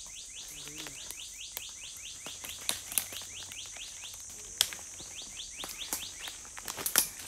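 Forest birds chirping in quick, repeated falling notes over a steady high-pitched insect drone, with a few sharp clicks, the loudest near the end.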